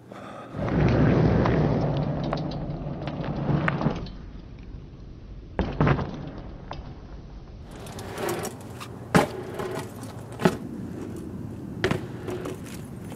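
BMX bike riding on asphalt: a loud rushing noise at first, then the tyres rolling with several sharp knocks and thuds as the bike hits the ground and the metal.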